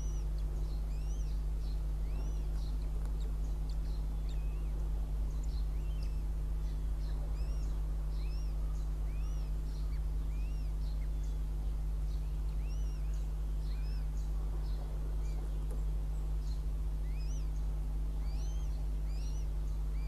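Northern goshawk chicks giving thin, high, rising-and-falling begging peeps, repeated many times while the female feeds them. A steady low hum sits under the calls and is the loudest sound.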